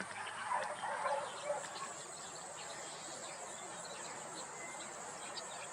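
Steady high-pitched insect chorus, like crickets trilling, with a few faint animal calls in the first second and a half.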